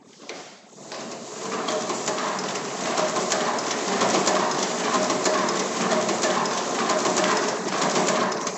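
Pelikan Rotafix 88 hand-cranked stencil duplicator from the 1950s being cranked. Its drum and feed mechanism turn with a dense, even clatter that builds up over the first second or so, then runs steadily with a beat repeating roughly once a second.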